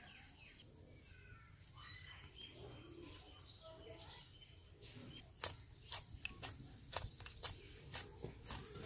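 Hands kneading soft, wet semolina-and-flour dough in a clay bowl: faint sticky squelches and slaps, coming about twice a second from about halfway through.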